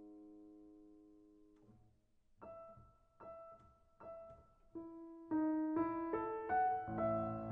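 Solo piano playing a slow adagio: a held chord fades away, then after a short pause soft single notes sound about once a second, leading into a rising run and fuller, louder chords near the end.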